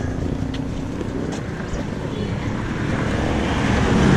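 A tricycle's motorcycle engine running steadily while the tricycle stands at a stop, getting louder near the end, with a couple of light knocks early on.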